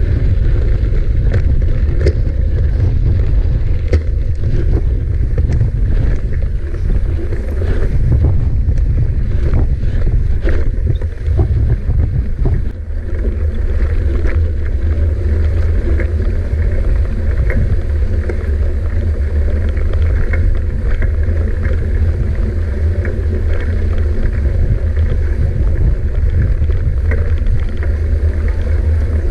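Wind buffeting the microphone of a camera on a moving mountain bike, a loud, steady, heavy rumble, with scattered short clicks and knocks from the bike rattling over rough ground.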